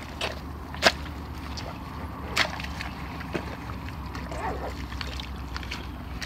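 Spade being driven into wet mud and stems to dig out a crab burrow, with two sharp knocks as the blade strikes, about a second in and near two and a half seconds, and fainter chops between.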